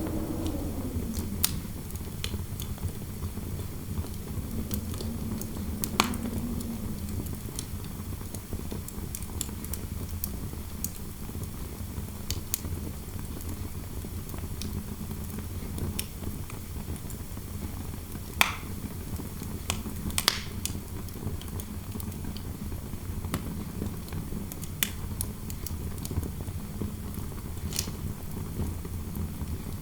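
A wood fire crackling, with scattered sharp pops, the loudest about 6, 18 and 20 seconds in, over a steady low rumble of wind noise. A faint wind howl falls away right at the start.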